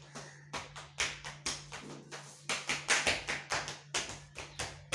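Rapid, sharp taps, about four a second, loudest a little past the middle.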